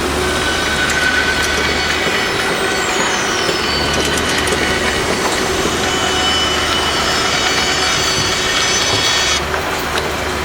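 Loud, continuous construction-site machinery noise with metallic screeching and clatter, and a falling whine about two to four seconds in.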